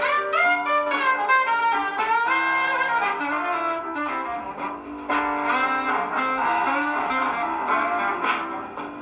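Recorded instrumental music played back through an Altec loudspeaker system, two Altec 416 woofers with an Altec 288 compression driver on a Mantaray horn. A melody line moves in quick runs of notes.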